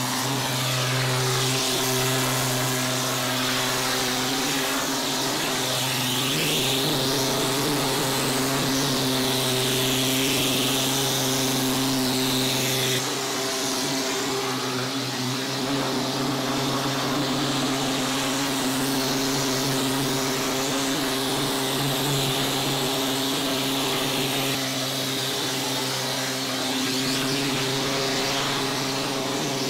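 G4 plastering machine running steadily while wet mortar is sprayed onto the wall through its air-fed spray gun: a continuous machine drone under the hiss of compressed air. The drone changes slightly about thirteen seconds in.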